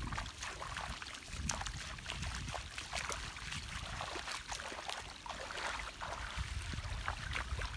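Water splashing and sloshing in many short irregular splashes over a steady watery hiss.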